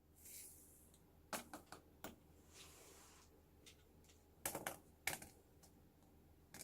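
Faint, light clicks and taps of kitchen utensils, coming in small quick clusters, with soft rustling between them.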